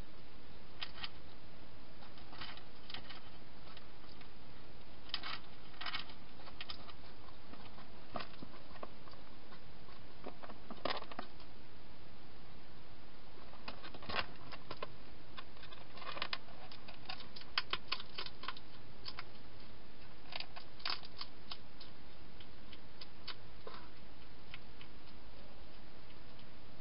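Wild hedgehog eating dry food: irregular, scattered crunching clicks, sometimes in quick clusters, over a steady hiss.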